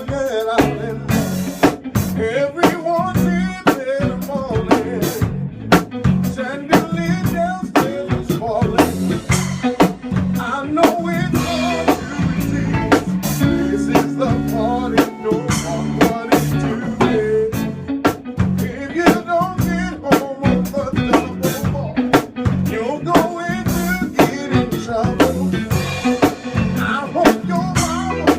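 A band playing, with a drum kit keeping a steady beat of snare and bass drum hits under bass and pitched instrument lines.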